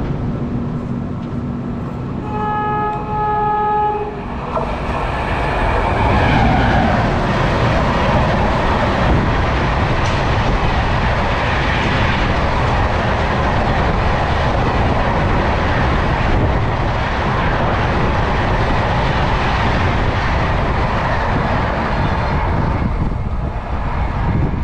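A train horn sounds once for about a second and a half. Then the KSR Bengaluru Rajdhani Express's coaches pass at speed on the adjacent track, close by, with a loud, steady rushing rumble of wheels on rails that eases near the end.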